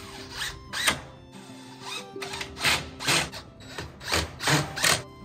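Cordless drill-driver driving screws into a wooden frame in several short bursts, each a brief whir that spins up and stops, under faint background music.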